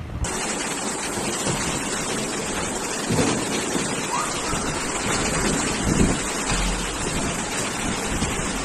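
Steady rush of strong cyclone wind buffeting the microphone, starting suddenly just after the start.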